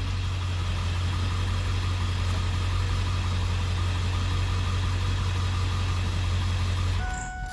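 Ford 7.3L Power Stroke V8 turbo diesel idling steadily, run briefly after an oil change to fill the new oil filter, then shut off about seven seconds in, followed by a steady beep.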